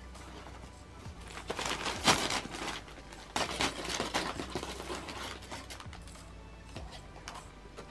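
Brown kraft paper crinkling and rustling under a cat as it shifts and paws at a wand toy's string. There are two louder bursts of crinkling, one about a second and a half in and another around three and a half seconds, then only light crackles.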